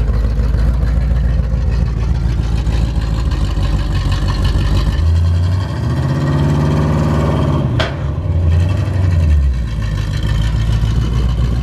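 A 1970s Pontiac Firebird drag car's engine idling roughly, then revved and held up for a few seconds about halfway through as the car climbs the ramps onto a trailer, before dropping back to idle. There is a single sharp knock near the top of the rev.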